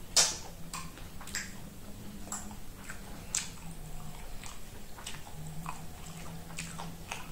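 A person chewing corn on the cob close to the microphone: scattered wet mouth clicks and small crunches, with one sharper click near the start.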